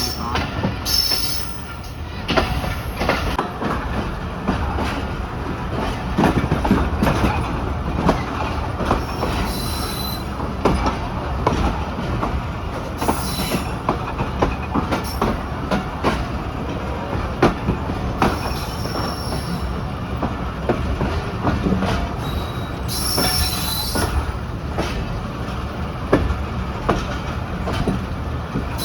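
Passenger train running on the rails, heard on board: a steady rumble with repeated clacks and knocks of the wheels over rail joints and points, and a few short spells of high wheel squeal.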